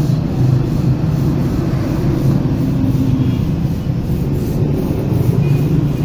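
Steady low rumble of engines in street traffic.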